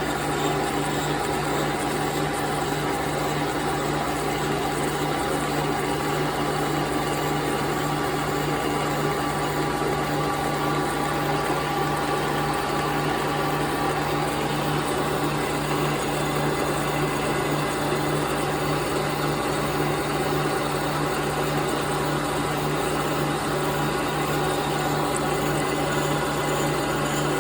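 1930s Brown & Sharpe 3A universal milling machine running steadily under power table feed, its 42-tooth arbor-mounted cutter milling a slot in a delrin part. It makes an even mechanical hum with a couple of steady tones.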